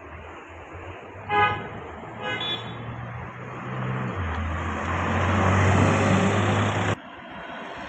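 Two short car-horn toots, about a second and two seconds in, then a Porsche 911's flat-six engine getting louder as the car drives past close by, cutting off suddenly near the end.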